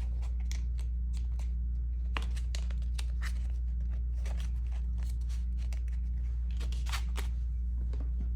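Paper handling: crisp paper bills and an envelope rustling and tapping in short, scattered bursts. A steady low electrical hum runs underneath.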